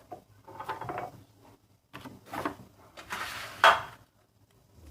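Kitchen utensils and dishes clattering and scraping in a few short bursts, with one sharp clack about three and a half seconds in.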